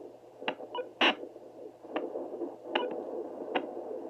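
Home fetal doppler's speaker output as the probe searches the lower belly: a grainy whooshing hiss broken by sharp pulse-like clicks about once a second, the loudest about a second in.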